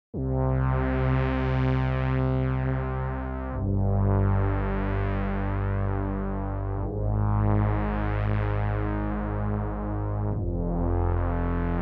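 MFB Synth Pro synthesizer playing four long sustained chords, one after another, each held about three and a half seconds. On each chord the brightness swells up and then falls away again, like a filter opening and closing.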